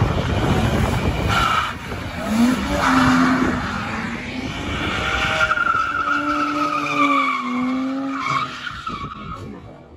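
BMW cars drifting on asphalt: tyres skidding and squealing while the engine revs up and down, fading away near the end.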